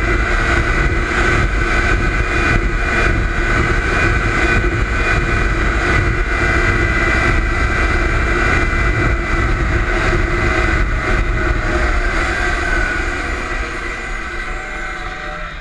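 Arctic Cat Z440 snowmobile's two-stroke engine running hard at speed on the trail, a steady high note. Over the last few seconds the engine note eases and gets quieter.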